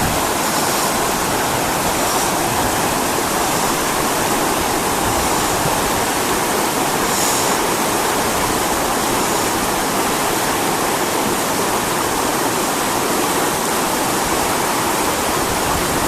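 Steady rush of river water flowing fast over stones.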